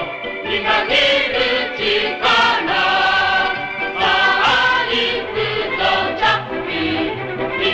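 Boys' choir singing an upbeat 1960s anime theme song over instrumental backing.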